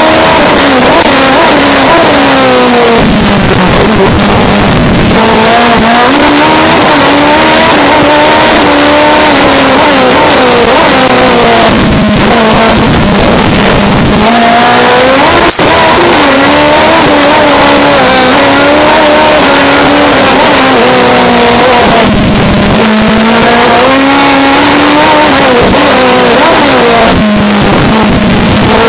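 Race car engine heard from inside the cockpit, revving hard and falling back again and again as the car accelerates, brakes and changes gear through a slalom. There is a brief dip in the sound about halfway through.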